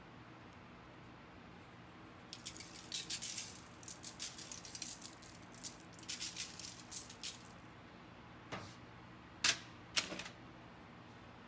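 Seasoned salt rattling in a Morton Season-All shaker as it is shaken over raw steaks, in quick bursts for about five seconds. Then come a few sharp knocks, the loudest two near the end.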